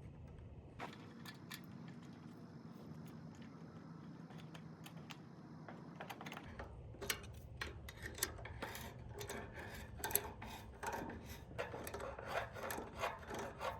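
Faint clinks, taps and rubbing of small metal parts being handled and fitted. The clicks are sparse at first, then come in a quick, busier run through the second half.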